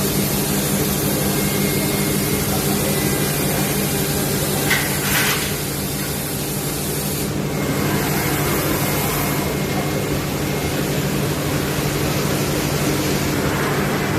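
Five-axis CNC wood router running: the spindle machines a wooden workpiece with a steady hum and hiss. There is a brief sharper burst about five seconds in.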